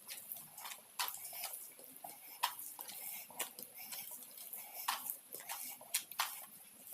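Close-miked eating of fried fish and rice: irregular wet chewing and lip smacks, with a sharper click about every second.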